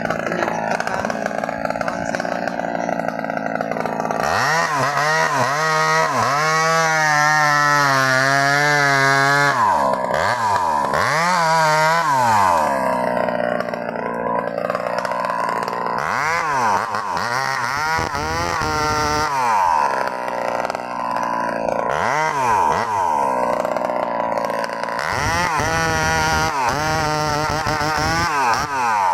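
Two-stroke chainsaw running low for a few seconds, then revved hard about four seconds in. Its engine pitch rises and falls repeatedly as the chain works through a sengon tree's trunk.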